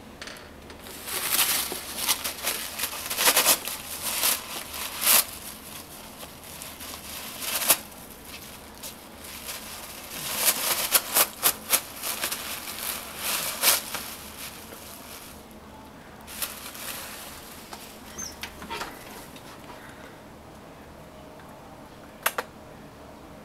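A cat tearing and crumpling paper with its teeth and claws: irregular quick rips and rustles in two long spells, then a few softer rustles. One sharp click near the end.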